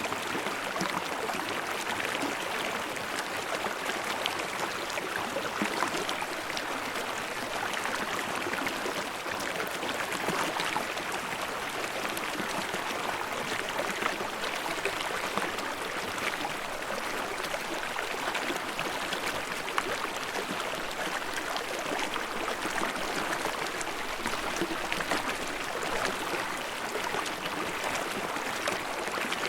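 Babbling mountain stream: steady rushing water with small splashes and gurgles scattered through it.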